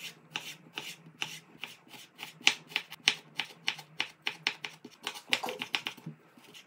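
Kitchen knife dicing chicken breast on a wooden cutting board: quick, even chops, about three a second, each a sharp knock of the blade against the board, briefly quicker near the end.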